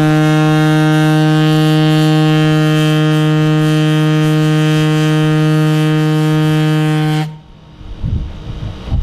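A ship's horn sounding one long, steady blast, a deep tone rich in overtones, as a warning ahead of the demolition charge; it cuts off about seven seconds in, leaving faint wind and water noise.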